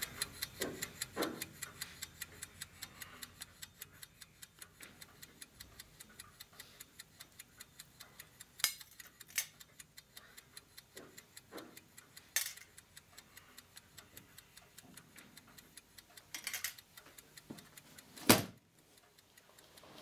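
A watch ticking steadily and fast, about five ticks a second, with a few louder clicks and knocks laid over it. A sharp knock near the end is the loudest sound, and the ticking stops just after it.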